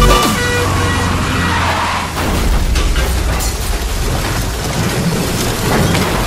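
Heavy rain pouring down, with a deep steady rumble of a vehicle underneath.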